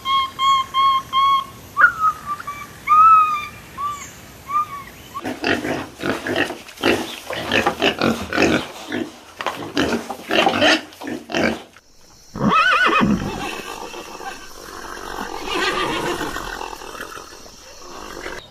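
A succession of different animals' calls: a run of short, high, peeping notes, then a stretch of rapid harsh calls, and after a break about twelve seconds in, a louder call that rises and falls in pitch.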